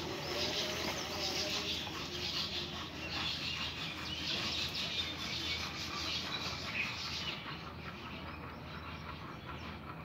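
Many small birds chirping and twittering together in a dense chorus, thinning somewhat after about seven seconds.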